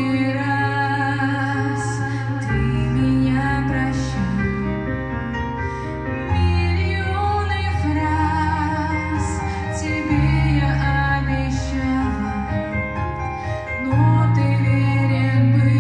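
A woman singing a Christian song into a microphone over instrumental accompaniment, its low chords changing about every four seconds.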